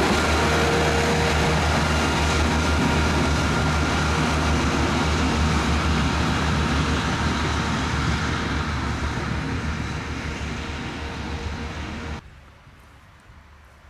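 Narrow-gauge train rolling past close by, its wheels clattering on the rails with a thin squeal and a low rumble. The noise fades over several seconds and cuts off abruptly about twelve seconds in, leaving quiet open-air ambience.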